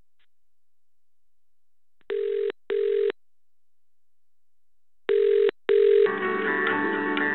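British telephone ringing tone heard down a phone line, two double rings (brr-brr, pause, brr-brr) as the call is put through to be answered, after a short quiet stretch. The ringing gives way near the end to on-hold music.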